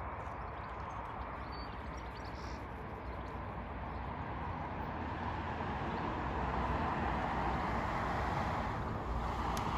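Steady outdoor background noise: an even rushing hiss that swells slightly about halfway through.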